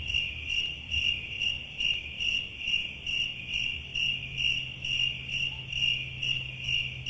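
Cricket chirping, an even high chirp about twice a second, over a faint low hum. It starts and stops abruptly with the edit, as the comic 'crickets' sound effect for waiting.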